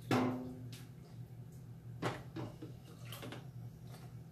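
Kitchen utensils and a plastic Nutribullet cup knocking and clunking as cooked hot pepper sauce is put into the cup. The first knock, right at the start, is the loudest and rings briefly; a few softer clunks follow. A steady low hum runs underneath.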